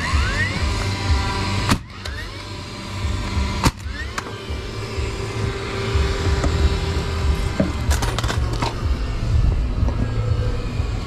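A 21-degree framing nailer firing nails into a wooden post: two sharp shots about two seconds apart, with short rising whirs around them, over a steady low rumble.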